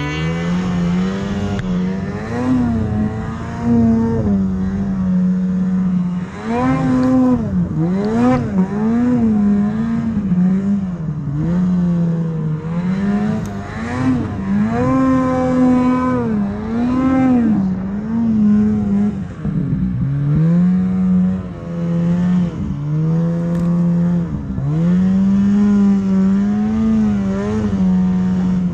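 Snowmobile engine revving up and down as the throttle is worked while the sled ploughs through deep powder, its pitch rising and falling every second or two with a few brief dips in power.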